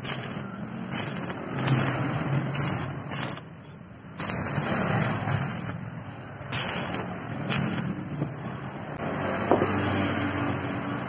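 Stick (arc) welding crackling in several short bursts as tack welds are laid on a steel tube-and-bar joint, over a steady low hum. The bursts stop near the end, followed by a few light knocks.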